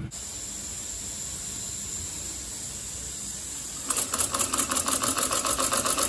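Steam hissing steadily through a small homemade V-twin steam engine. About four seconds in, the engine starts running with a fast, even, rhythmic beat.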